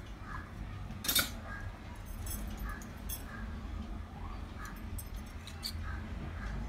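Small brass miniature utensils clinking and knocking as they are handled and set down, with one sharp metallic clink about a second in and a few lighter taps after it.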